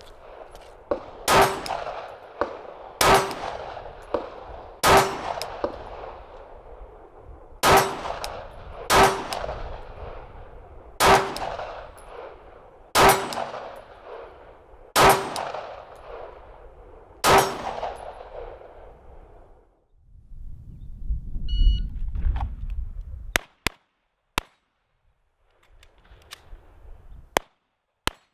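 A Glock 19 9 mm pistol fired at a steel plate: nine shots at a slow, steady pace about two seconds apart, each one followed by the ringing of the struck steel. After the last shot comes a few seconds of low rumble, then a few faint clicks.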